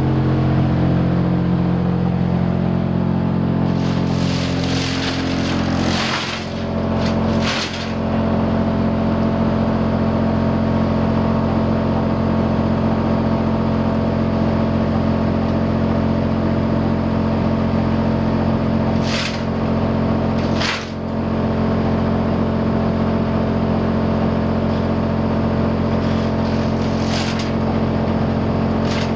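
Wood chipper running steadily at speed, a constant machine drone with several short, harsh noisy bursts over it.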